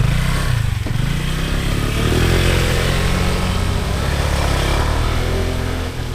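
A motor vehicle's engine running loudly, its pitch wavering up and down as it is driven, dying away sharply at the very end.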